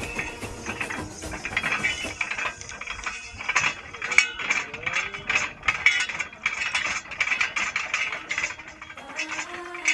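Fast, uneven ratcheting clicks from a hand-worked borewell pulling rig as rope is paid out through its tripod pulley down into the borewell, growing louder after about two seconds.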